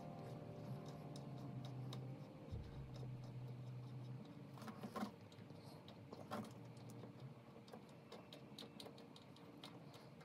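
Faint scattered clicks and ticks of a hand screwdriver turning a screw into the top of a guitar amplifier's cabinet. A low sustained musical note fades out over the first few seconds.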